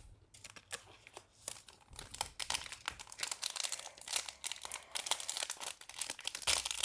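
Plastic crinkling from trading cards and their wrappers being handled: a run of quick crackles that grows denser after about two seconds.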